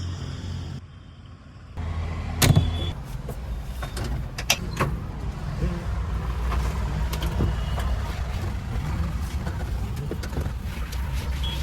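Diesel engine of heavy earthmoving machinery running steadily, with a few sharp knocks, the loudest about two and a half seconds in. The sound drops away briefly about a second in.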